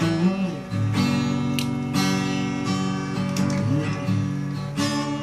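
Acoustic guitar strummed, chords ringing and renewed by fresh strums about once a second.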